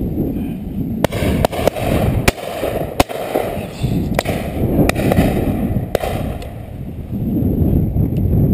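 Shotgun shots on a driven pheasant shoot: about seven sharp reports at uneven intervals, several close together about a second in, over wind rumbling on the microphone.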